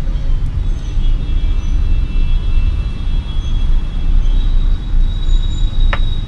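Steady low rumble, with a faint high whine and a single sharp tick near the end.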